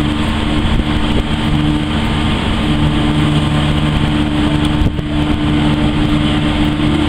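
Steady drone of the car ferry MV Loch Alainn's diesel engines, with a constant low hum at two pitches over a loud rushing noise. The hum and noise dip briefly about five seconds in.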